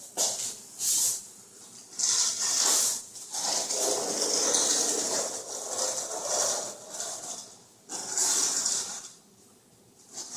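Hand screeding tool scraped through wet self-leveling compound on a concrete floor, in several swishing strokes, some a second or more long, with short pauses between.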